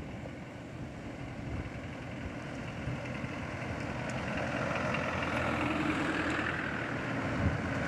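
Four-wheel-drive vehicle engine and tyre noise as it drives along a dirt track, slowly getting louder.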